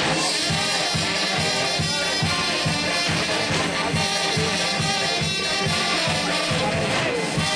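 Music with brass instruments over a steady, quick beat.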